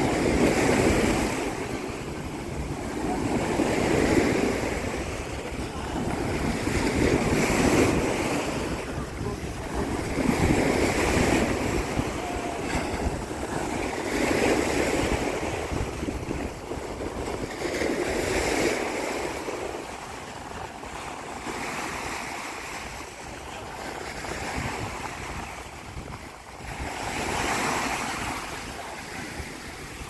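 Sea waves breaking on a beach, each swell of surf rising and falling about every three to four seconds, with wind buffeting the microphone.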